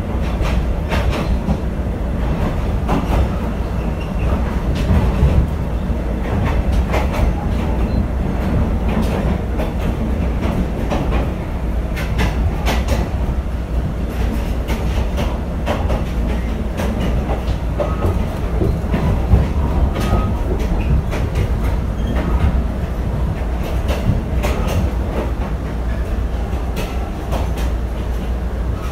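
Interior ride noise of a moving PNR passenger coach: a steady low rumble of the wheels on the track, broken by many irregular clicks and knocks.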